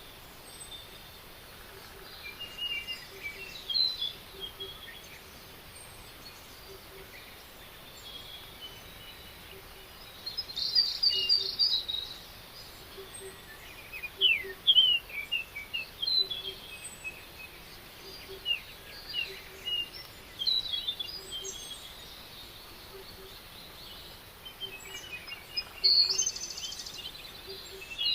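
Several songbirds chirping and trilling in scattered short phrases over a steady outdoor hiss, with a faint low note repeating about once a second underneath.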